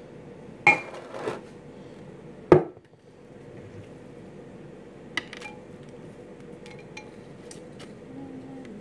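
Glass bowl knocking and clinking as it is handled: two knocks about a second in, a sharper, louder knock about two and a half seconds in, then scattered small clicks.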